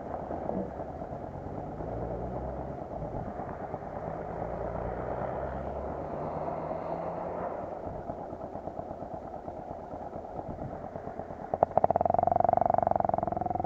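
Enduro dirt bike engine running, its pitch shifting up and down. Near the end it gets suddenly louder with a few sharp clicks and a strong, steady buzzing note.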